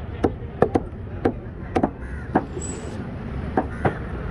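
A knife chopping fish on a wooden block: about eight sharp knocks at uneven intervals, over a steady low traffic rumble.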